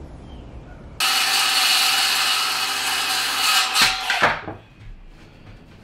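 Circular saw cutting through a wooden board. Its whine starts suddenly about a second in and holds steady for about three seconds. The blade then winds down, falling in pitch.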